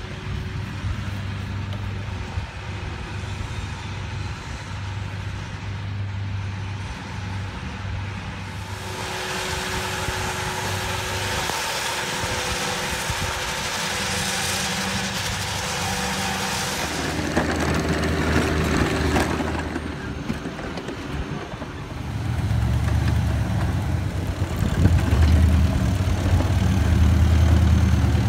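Vermeer stump grinder's engine running steadily, its cutter wheel grinding into the stump for several seconds in the middle with a loud, hissing rasp, and a shorter burst of grinding a little later. The engine drone gets louder in the last few seconds.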